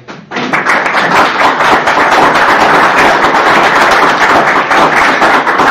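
Audience applauding: loud, dense clapping that starts suddenly a moment in.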